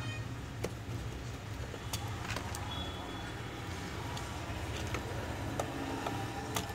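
Scattered light clicks and taps of a small handset's plastic parts and tools being handled during reassembly, over a steady low background hum.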